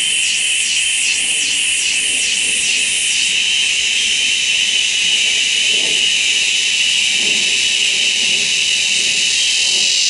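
Cicada singing: a loud, high-pitched buzz that pulses about twice a second at first, then merges into one continuous drone from about three seconds in.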